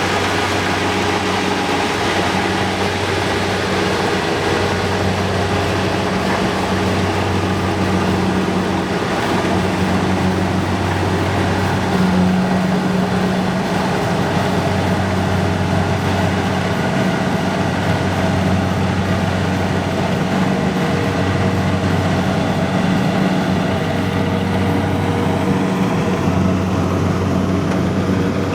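An engine running steadily under load, its low note swelling and easing every few seconds.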